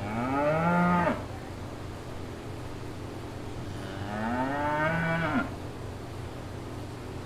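Water buffalo lowing twice: two drawn-out calls a few seconds apart, each rising and then falling in pitch, over a steady low hum.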